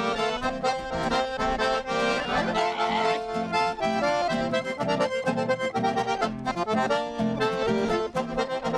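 Accordion playing an instrumental break in a gaúcho dance song, over a steady, rhythmic low bass backing.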